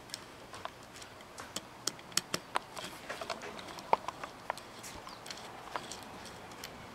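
Irregular small clicks and taps of screws and a screwdriver on the metal distributor housing as the two long screws holding the magnetic pickup are put in. Some of the taps ring briefly, the sharpest about four seconds in.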